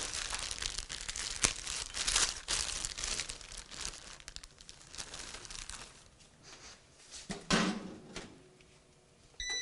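Crinkly plastic bread bag being handled and rustled open as slices are taken out, busy for the first several seconds and then dying away. A short electronic beep sounds right at the end.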